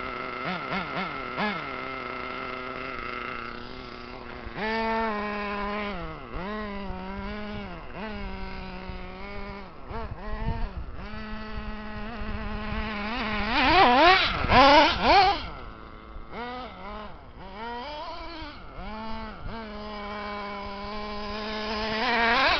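Reely Rex X 1/8-scale RC buggy's motor whining, its pitch rising and falling over and over as the throttle is worked. It holds one steady pitch for the first few seconds and is loudest about thirteen to fifteen seconds in, with quick rising sweeps.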